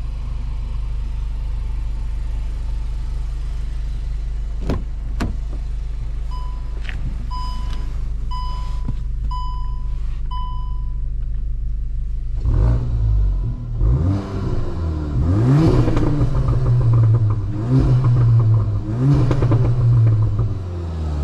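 Stage 1 tuned VW Mk8 Golf GTI with an iE catback exhaust idling, its turbocharged 2.0-litre four-cylinder running steadily. Two clicks and five evenly spaced electronic beeps follow. In the second half the engine revs up and down several times, louder.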